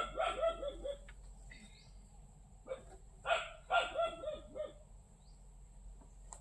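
An animal calling in two bouts of quick, repeated short cries, one at the start and another about three seconds in.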